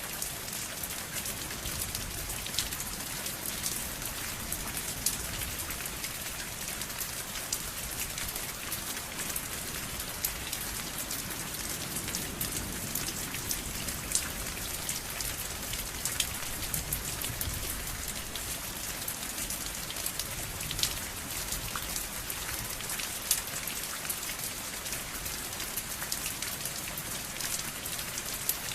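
Steady rain: a constant hiss dotted with many sharp, close drop impacts.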